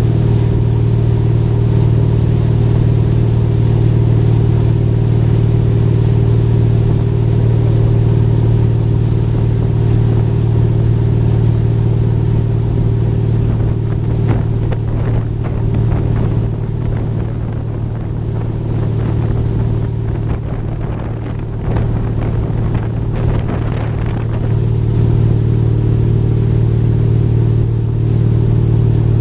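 Wake-surf towboat's engine running steadily under way, with water rushing in the wake. The engine note dips briefly about two-thirds of the way through, then comes back.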